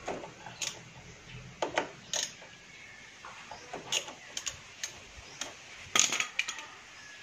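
Irregular metallic clicks and clinks of a hand-held Torx tool working a motorcycle's front brake caliper bolt loose, with a cluster of tool clinks about six seconds in.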